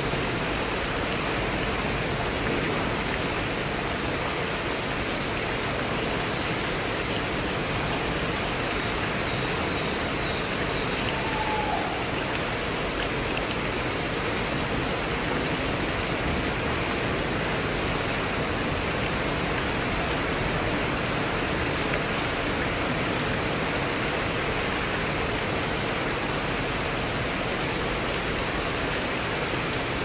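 Heavy tropical rain pouring steadily onto foliage and a roof, with water streaming off the roof edge; an even, unbroken hiss.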